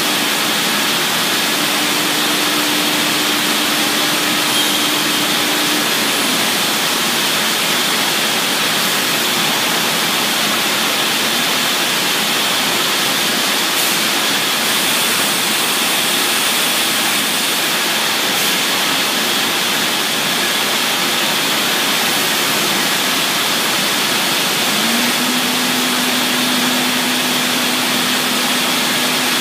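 Routech CNC router machining wooden chair legs: a loud, steady rushing noise, with a low steady hum in the first few seconds that returns near the end.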